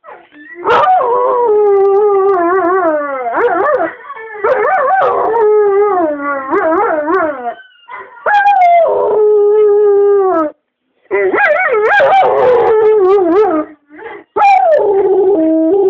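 A dog howling in reply to a recording of another dog howling: long, wavering howls that sag in pitch at their ends, in about five bouts with short breaks between them.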